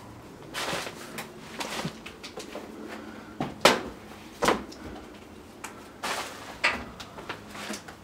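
A run of irregular knocks, bumps and short rustles as things are handled around a wooden cabinet, the sharpest hits about three and a half and four and a half seconds in.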